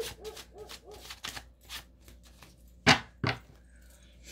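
Tarot cards being shuffled by hand: a quick run of light flicking clicks, then two sharp knocks close together about three seconds in.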